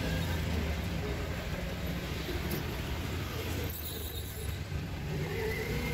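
Steady low rumble of road traffic and vehicle engines, easing slightly for about a second near the middle.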